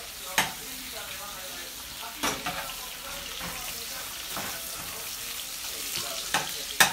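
Sausages frying in a pan: a steady sizzle, broken by a few sharp clicks, the loudest two close together near the end.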